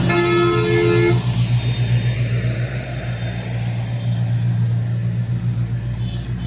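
A vehicle horn honks once for about a second, over a steady low engine drone from road traffic and machinery.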